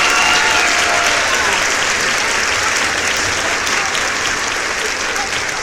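Crowd applause: dense, steady clapping that eases off slightly toward the end.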